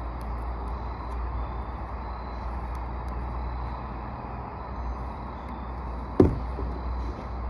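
Steady low outdoor rumble, with one sharp knock a little after six seconds in.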